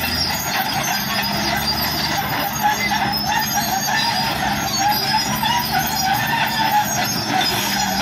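Caterpillar D6R crawler bulldozer working as it pushes a load of gravel with its blade: its diesel engine runs steadily under load, with a metallic squeal and clatter from the steel tracks.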